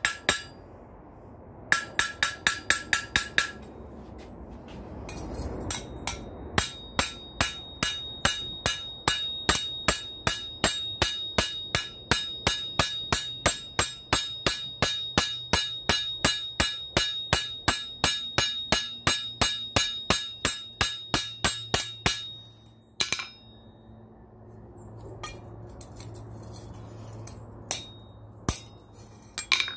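Small hammer rapidly striking on an anvil, about four blows a second, each with a bright metallic ring, as copper rivets are peened over to join a mild-steel spoon bowl to a rebar handle. The steady run of blows stops after about 22 seconds, and a few single taps follow.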